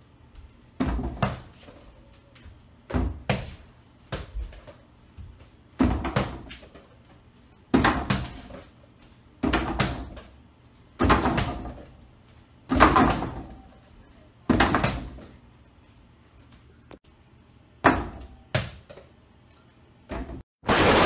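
Small foam basketball repeatedly striking an over-the-door mini hoop's backboard and steel rim. About ten knocks come one every second or two, some doubled, each with a brief rattle of the backboard and rim against the door. In the last moment a loud, sustained blast sets in.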